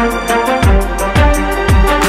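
Background music with a steady beat: a deep kick drum about twice a second, fast hi-hat ticks, and held melodic notes.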